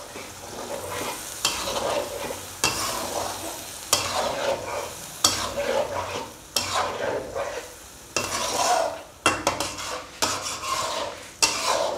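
Spatula scraping and stirring chicken through yogurt and green masala in a metal karahi, with strokes against the pan roughly once a second. The mixture sizzles throughout as the freshly added yogurt is mixed into the frying chicken.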